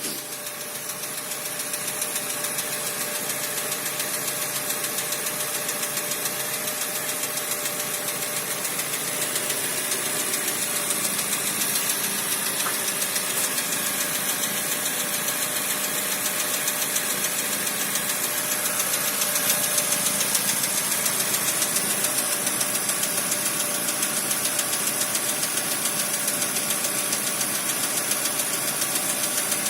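Ford Mondeo Mk4 (2008) engine running steadily with a fast, even knocking in it, the engine knock the car's owner is recording.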